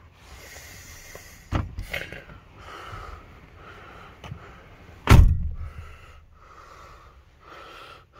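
Driver's door of a 1979 Chrysler New Yorker being pulled shut from inside: a couple of knocks about a second and a half in, then a loud, heavy door slam about five seconds in.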